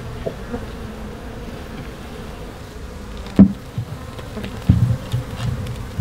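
A colony of African honey bees buzzing steadily. A sharp knock about three and a half seconds in is the loudest sound, followed by a few lighter knocks a second or so later.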